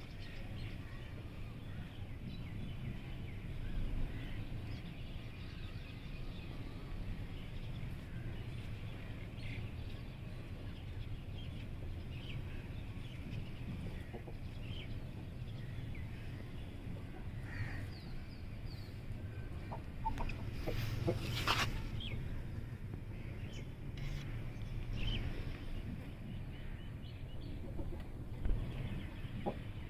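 Chickens clucking on and off over a steady low rumble. A brief loud sound cuts through about two-thirds of the way in.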